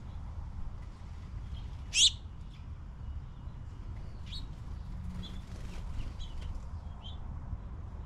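Small songbirds chirping: one loud, sharp chirp about two seconds in, then a clearer chirp near the middle and a few fainter short chirps. A bird flutters in to land.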